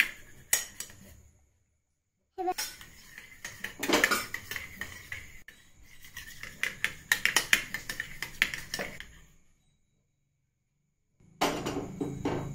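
A metal spoon clinking fast and unevenly against a small steel bowl as raw eggs are beaten in it. The clinking stops twice briefly.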